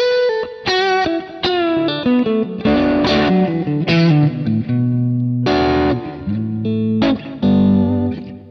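Overdriven Strat-style single-coil electric guitar played through a Kemper amp profile, picking a lead line of single notes and double-stops with bends and vibrato. It is on the darker neck-and-middle in-between pickup setting, with the profile EQ'd to cut the bass and fullness and add low mids and treble for extra clarity.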